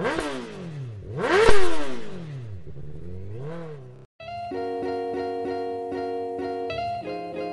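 A motorcycle engine is revved three times, each rev rising and then falling in pitch, the second the loudest. About four seconds in it cuts off and background music with plucked guitar-like notes takes over.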